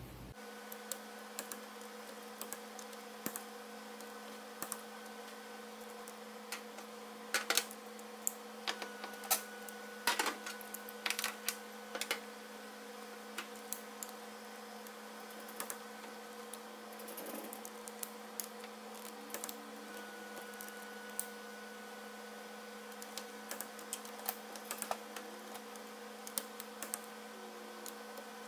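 Scattered light clicks and taps of hand tools working on metal parts, coming in clusters, over a steady hum.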